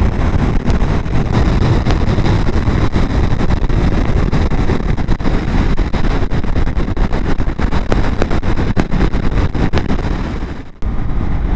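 Motorcycle riding on the road: engine and road noise under heavy wind buffeting on the microphone. The noise drops away for a moment near the end and comes back abruptly.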